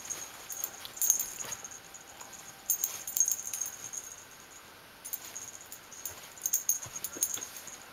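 Paper towels rustling and crinkling in bursts as an Italian greyhound puppy pushes them over his bone on a bed, trying to bury it. There is a brief lull about four to five seconds in.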